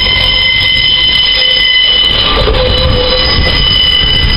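A passenger train moving through a station, with several steady high-pitched squealing tones over a low rumble. The rumble grows louder about halfway in.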